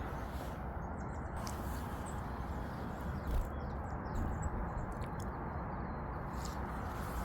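Steady rushing noise, like wind on the microphone, with a few brief, faint high chirps and flutters from small birds.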